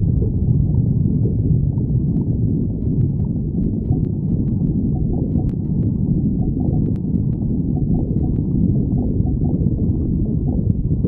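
A person's stomach growling: a continuous low rumble with small gurgling pops and clicks scattered through it.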